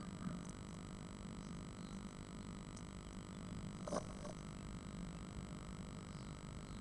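Steady electrical hum and hiss from a nest-box camera, made of several steady tones, with a brief soft knock about four seconds in as the great tit moves in the nest.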